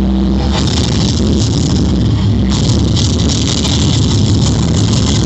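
Loud music played over a sonidero sound system, with heavy bass.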